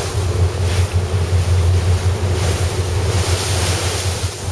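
Ferry Toshima under way: a steady low engine drone under the rush of water and wind buffeting the microphone, the wind swelling a few times.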